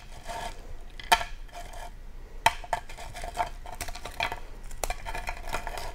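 Hard peanut brittle being broken into pieces: a series of sharp, irregular cracks and clinks of candy shards against a baking sheet, each with a short ring.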